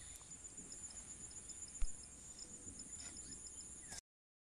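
Steady high-pitched insect chorus with a faint, evenly repeated chirp, and a single low thump about two seconds in; the sound cuts off shortly before the end.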